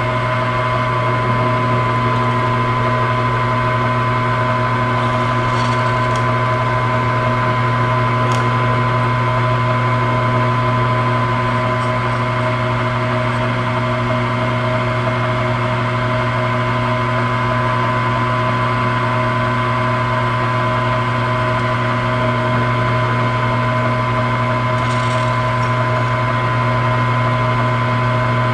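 Drill press running steadily with a constant motor hum, drilling rivet holes through a metal bearing retainer for a Porsche 944 torque-tube carrier bearing.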